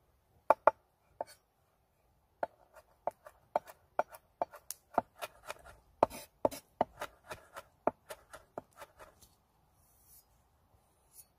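Kitchen knife chopping garlic on a wooden cutting board. A few single knocks come first, then a quick, uneven run of chops lasting several seconds, which stops about nine seconds in.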